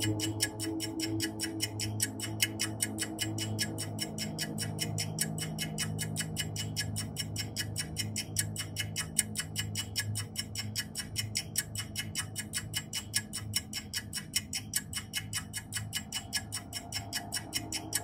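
Ambient background music: a rapid, even clock-like ticking over a low steady drone, with ringing tones fading away during the first few seconds.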